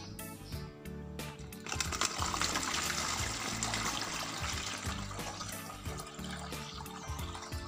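Rice-washing water poured from a plastic basin through a plastic funnel into a plastic bottle, a rushing, splashing pour that starts about two seconds in and thins out near the end. Background music plays throughout.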